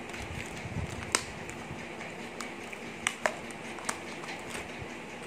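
Small plastic dip pot being handled: four sharp plastic clicks, the loudest about a second in and two close together about three seconds in.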